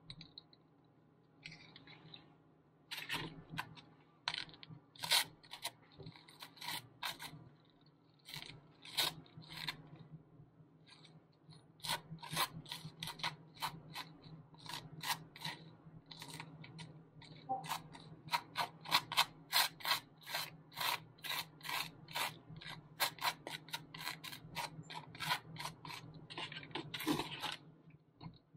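Metal butter knife spreading butter on dry toast: many short rasping scrapes, one per stroke, coming faster and closer together from about halfway through.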